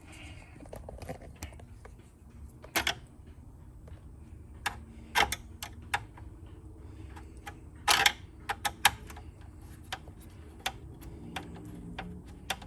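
Irregular clicks and light knocks from a T15 Torx driver taking four screws out of a truck's dash trim piece and handling the loosened parts, with the sharpest knocks about 3, 5 and 8 seconds in.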